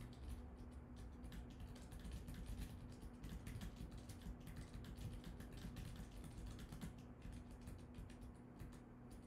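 Typing on a computer keyboard: a quick, uneven run of faint key clicks, with a low steady hum underneath.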